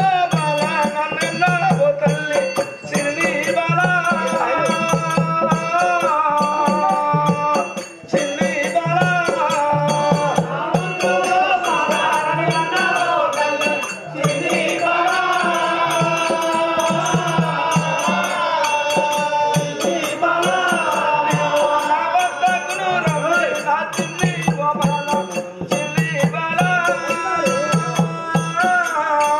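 A voice singing a Telugu folk-drama song in long, gliding phrases, over a steady drum beat and jingling percussion keeping time.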